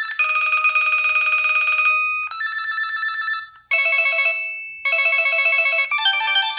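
A 2004 LG VX3200 cell phone playing its built-in ringtones: a fast warbling ring for about two seconds, then short beeping melodic phrases with brief gaps between them.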